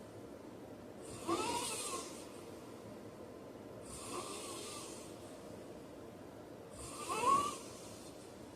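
A man snoring in his sleep, slow breaths about every three seconds: loud snores about a second in and again near the end, with a softer breath between them.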